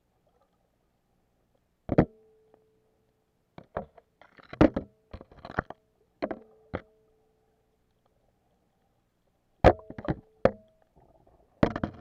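Sharp knocks and clatters of an underwater camera housing bumping against coral rock, in scattered clusters, some followed by a brief ringing hum.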